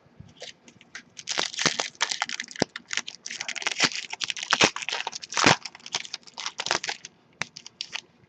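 Shiny foil wrapper of a trading-card pack being crinkled and torn open by hand. A dense run of crackling lasts from about a second in to about seven seconds, followed by a few sharper crinkles.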